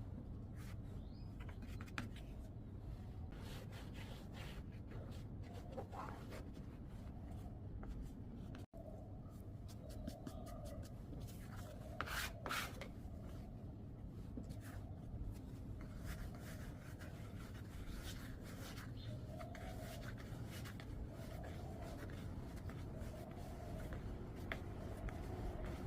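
Faint rubbing and scraping from dough being handled, with a few light clicks, over a steady low hum.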